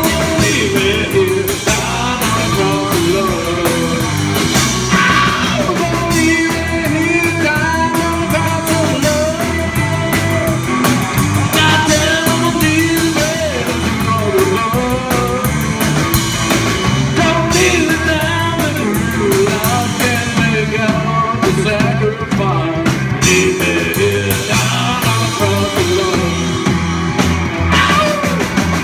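Live rock and roll band playing a song on electric guitar, upright bass and drum kit, at a steady loud level throughout.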